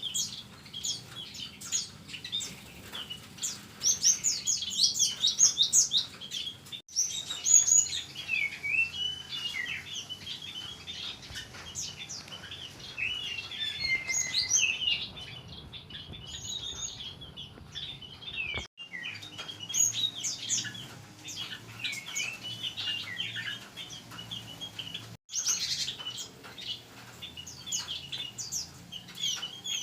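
Many small songbirds in a mixed aviary chirping and twittering at once: dense, overlapping quick high chirps and short rising and falling whistles. The sound drops out for an instant three times.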